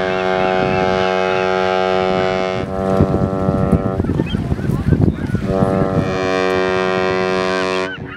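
Cruise ship's horn sounding long, steady blasts: one held blast that cuts off about four seconds in, then a second long blast starting a second and a half later and stopping just before the end.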